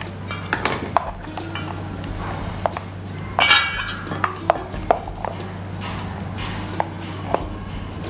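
Knocks, clicks and scraping of a mixer-grinder jar being tipped and emptied of coarsely ground bengal gram into a plastic bowl, with a louder rattling scrape about three and a half seconds in, over a steady low hum.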